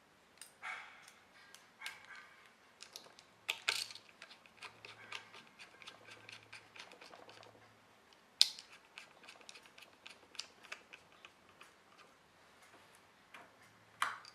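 Irregular small clicks and taps of a small screwdriver and metal parts being handled while screws go back into an opened laptop hard drive, with a few sharper clicks, the loudest about eight seconds in.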